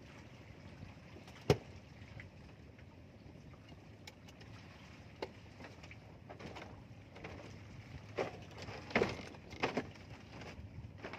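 Faint steady background noise, broken by a single sharp click about a second and a half in and a few short thumps in the last few seconds.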